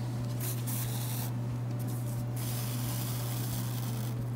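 Sewing thread being drawn through crocheted fabric and zipper tape during hand-stitching, heard as three rubbing hisses, the last the longest, over a steady low hum.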